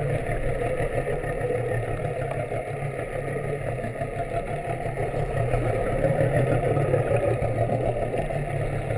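Boat engine idling, heard underwater: a steady low hum.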